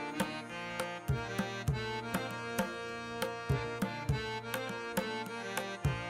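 Background music: a steady hand-drum rhythm under a sustained melody.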